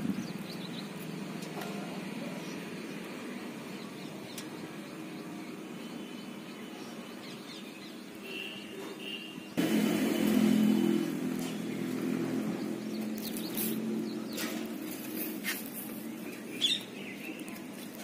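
A motor running steadily, its hum becoming suddenly louder about halfway through, with a few short bird chirps.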